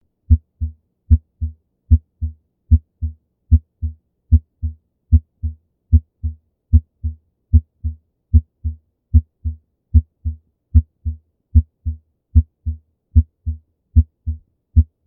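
Heart sounds of mitral regurgitation, as heard in auscultation: a regular two-part heartbeat at about 75 beats a minute. Each sharp first sound is followed about a third of a second later by a weaker, longer, fading sound.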